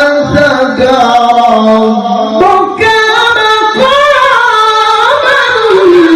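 A male qari reciting the Quran in the melodic tilawah style, drawing out long ornamented vowels in a high-pitched voice whose pitch glides and wavers up and down.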